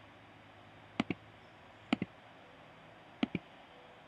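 Computer mouse clicked three times, about a second apart, each click a quick double tick, over quiet room tone.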